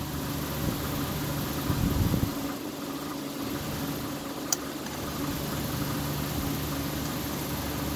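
A steady low mechanical hum like an idling engine, with handling knocks around two seconds in and a single sharp click a couple of seconds later, as a spark plug is fitted into a chainsaw.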